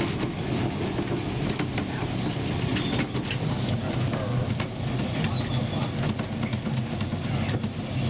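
Narrow-gauge passenger coaches of the Ffestiniog Railway running, heard at the gangway between two cars: a steady rumble with frequent clicks and rattles.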